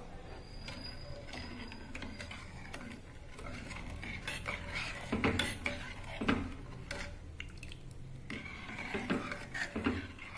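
Steel ladle stirring thick carrot semiya payasam in a pot, scraping and clinking against the pot's sides and bottom. There are a few louder knocks about five to six seconds in and again near the end.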